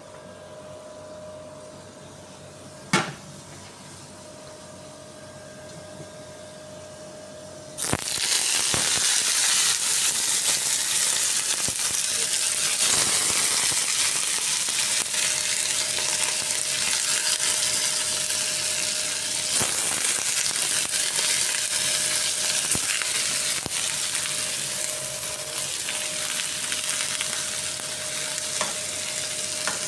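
A single sharp clink about three seconds in, then about eight seconds in raw whole shrimp hit a hot pan and start sizzling loudly, frying steadily while a spoon stirs them.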